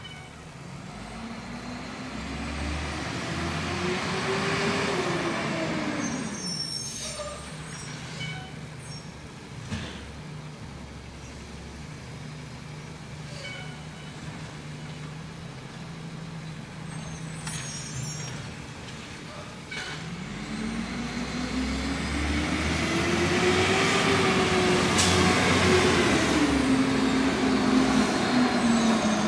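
Diesel garbage truck engine revving up and back down twice, the second swell louder as the truck draws near. Short air-brake hisses come between the two swells.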